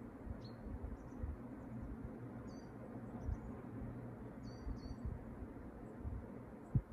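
A few faint, short high chirps, like small birds calling, over a steady low rumble with occasional low thumps.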